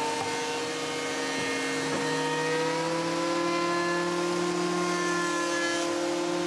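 Benchtop thickness planer running with its dust collection, not yet cutting: a steady motor hum and whine whose pitch shifts slightly about three seconds in.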